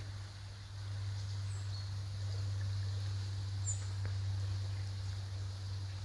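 A steady low hum, with a few brief high bird chirps about one and a half and nearly four seconds in.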